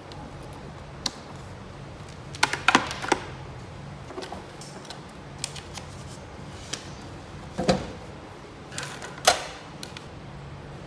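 Scattered clicks and knocks of a power plug and cables being handled against a bench-top function generator, in small clusters, over a low steady hum.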